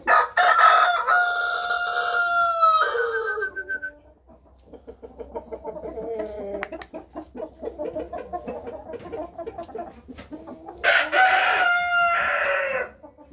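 Rooster crowing twice: one long crow right away and another near the end, with hens clucking more quietly between the two crows.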